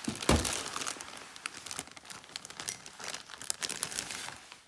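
Plastic zip-top bag crinkling and rustling as it is handled, with one heavier thump just after the start.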